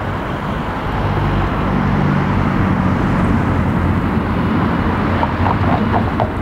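Steady street traffic noise with a low engine-like hum that swells from about a second in. A few short squeaky chirps come near the end.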